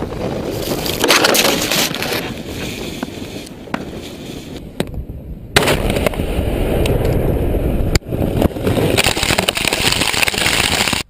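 Explosions: a loud rumbling roar, with sudden new blasts about five and a half and eight seconds in.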